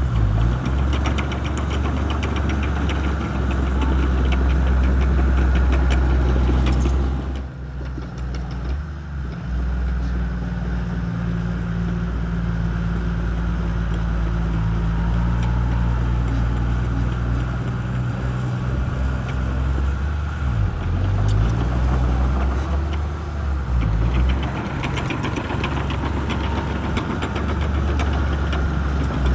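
Shantui bulldozer's diesel engine running under load with a steady low hum. It drops back briefly at about eight seconds in and shifts pitch around twenty seconds in, with a fine rapid rattling over it near the start and the end.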